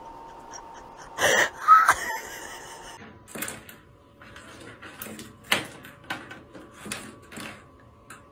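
A cat pawing at the gap under a bathroom door and knocking a small plastic pen about on the tile floor: about a dozen light, irregular taps and clicks. Before them, a couple of seconds in, comes a short, louder rustle with a brief squeak.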